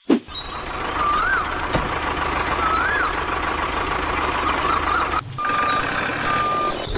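Vehicle noise with a reversing beeper: a steady hiss-like running sound, with two flat beeps near the end. Two short up-and-down chirps sound earlier.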